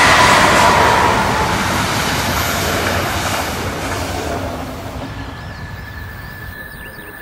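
Double-deck coaches of a regional train hauled by a DB class 218 diesel-hydraulic locomotive rolling past and fading into the distance, with a high whine in the first second or so. After about five seconds the train is gone and birds chirp faintly against a quiet background.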